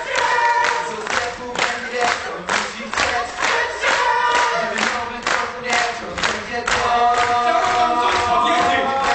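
A vocal group singing a gospel-style number with steady hand-claps on the beat, about two and a half claps a second. About two-thirds of the way in the clapping stops and the voices swell into long held notes.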